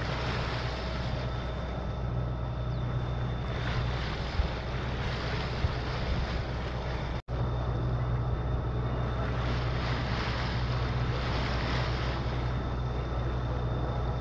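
Sailing yacht's inboard diesel engine running steadily under motor, a low even drone with water and wind rushing past the hull and microphone. The sound cuts out for an instant about seven seconds in.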